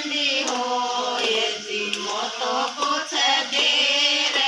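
Voices singing a Hindi devotional bhajan together in a group, a continuous melodic line.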